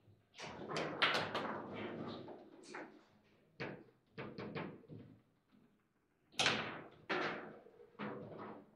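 Table football play: the ball cracking against the plastic figures and the table's walls, with the rods clacking, as a run of sharp knocks of uneven loudness. The loudest hits come about a second in and again around six and seven seconds in.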